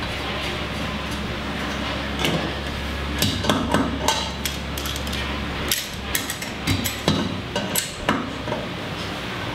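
Metal hand tools clinking and knocking against metal while a threaded hose-barb fitting and adapter are fitted, as scattered sharp clicks from about two seconds in. A steady low hum underneath cuts out about halfway through.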